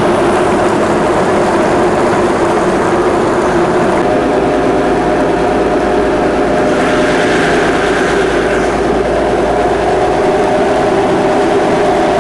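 Motorboat engine running steadily under way, a constant drone with a haze of wind and water noise.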